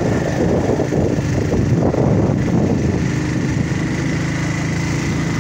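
Vehicle engine running with road noise, heard from aboard the moving vehicle. About three seconds in, the sound settles into a steady engine drone.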